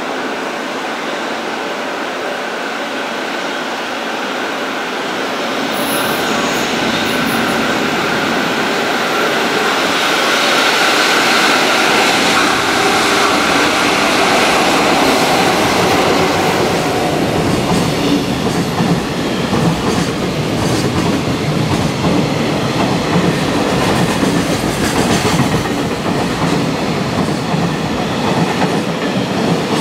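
EF66 electric locomotive hauling a container freight train through at speed: it grows louder as it approaches and passes, loudest about ten to sixteen seconds in. The container wagons follow, with wheels clattering rhythmically over the rail joints.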